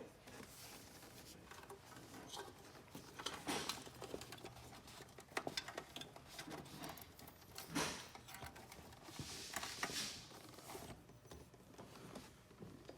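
A cord being worked through a hole and pulled along a massage chair's frame: intermittent rustling and scraping with scattered small clicks, and a longer scrape near the end.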